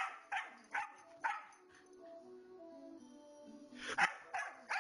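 A dog barking in short, sharp bursts: a quick run of four or five barks in the first couple of seconds, then two or three more about four seconds in, over background music.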